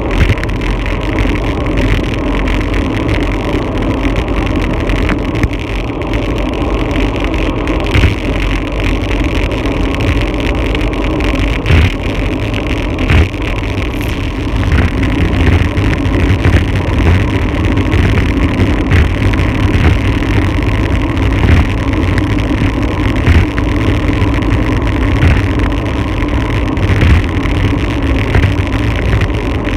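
Wind rushing over a bike-mounted camera's microphone on a fast road-bike descent, a steady loud rush with frequent low buffeting thumps, mixed with the bike's tyre and road noise.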